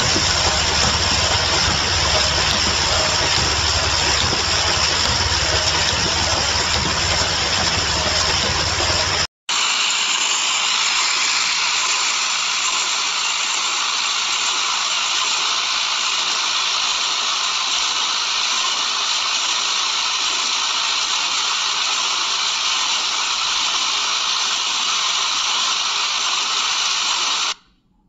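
Automatic tamper-evident cap assembly machine running, a loud, steady mechanical whir and hiss. It drops out briefly about nine seconds in, comes back with less deep rumble, and cuts off suddenly near the end.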